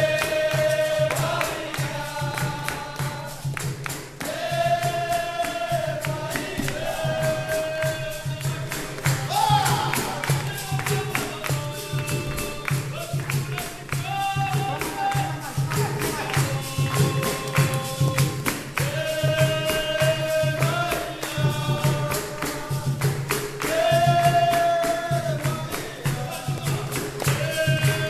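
Capoeira roda music: berimbaus, pandeiro and atabaque drum keep a steady rhythm while a group sings in chorus and claps in time.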